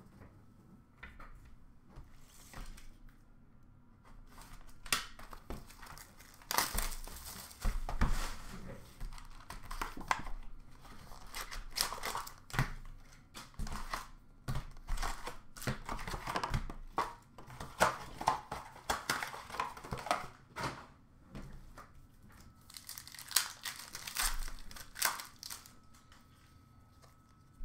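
Plastic wrappers of Upper Deck Series 1 hockey card packs crinkling and tearing as packs are ripped open and the cards handled. It comes in quick, irregular bouts that start about four seconds in and ease off near the end.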